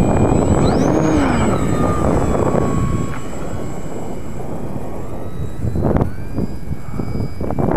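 Wind buffeting the microphone, with the high whine of a ParkZone Visionaire's electric motor over it, sweeping up sharply in pitch about a second in and then falling away as the plane manoeuvres.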